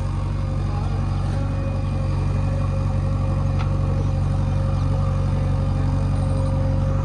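Heavy diesel engine running at a steady idle, with no revving.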